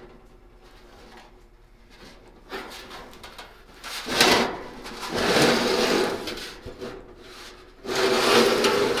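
The gas heater's steel cabinet is slid and turned across a wooden workbench, scraping. There is a sharp knock about four seconds in, then two scraping stretches of a second or two each, the second near the end.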